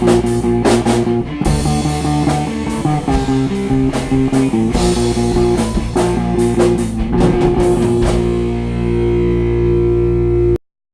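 Rock band playing the final bars of a song on guitars and drums. The drums stop about eight seconds in, leaving a held chord ringing, which then cuts off suddenly near the end.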